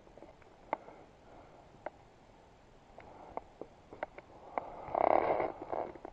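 Scattered light clicks and knocks from fishing tackle and a reel being handled close to the microphone, with a louder rustle about five seconds in.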